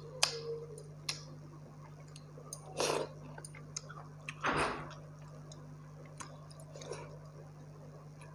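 Eating by hand close to the microphone: sharp mouth clicks and smacks, and two short wet swishes about three and four and a half seconds in as fingers stir pakhala, rice soaked in water, in a glass bowl. A low steady hum runs underneath.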